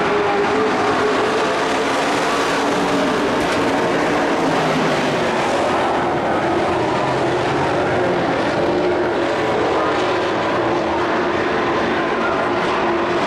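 Engines of several dirt-track race trucks running at racing speed, a steady loud drone of overlapping engine notes that waver in pitch as the trucks go through the turn and down the straight.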